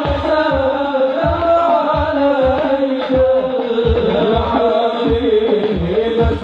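Sholawat devotional singing: voices chanting a slow, wavering melody over low drum beats about twice a second.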